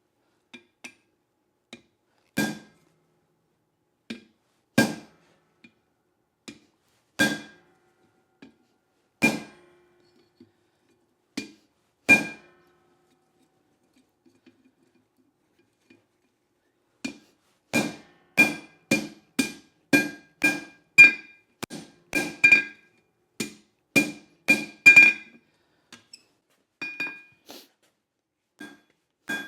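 Blacksmith's hammer forging leaf-spring steel on an anvil, each blow ringing. A few heavy blows come about every two seconds with lighter taps between, then after a pause of several seconds a steady run of about two blows a second.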